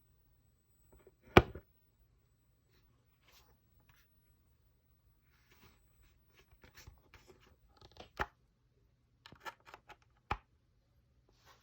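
Scattered clicks and short scraping handling noises. The loudest is a sharp click about a second and a half in, with more near the end, over a faint steady low hum.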